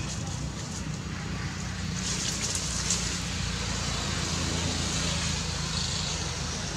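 Steady outdoor background noise: a low, choppy rumble with an even hiss over it, and no clear animal calls.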